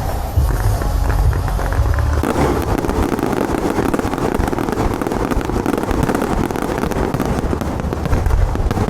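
Fireworks and firecrackers going off in a dense, rapid crackle that sets in about two seconds in and keeps going, over a low rumble at the start.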